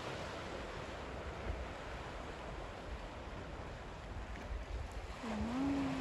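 Steady wash of sea surf on the rocks below, with wind rumbling on the microphone. About five seconds in, a person gives a brief hum.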